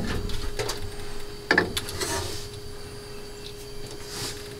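Handling noise as metal laser-head parts and an air-assist hose are fitted onto a laser engraver's gantry: a few light clicks and brief rubbing sounds, over a faint steady hum.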